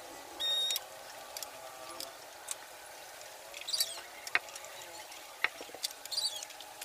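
Hand work on a tank-mounted electric air compressor, with scattered light metal clicks and taps. A short high squeak comes about half a second in, and small bird chirps are heard now and then.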